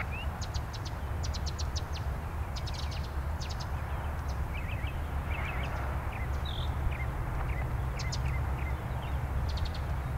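Steady shortwave static hissing from a Tecsun PL-660 portable radio as it is tuned between stations, with no broadcast coming through. Birds chirp briefly and repeatedly over it.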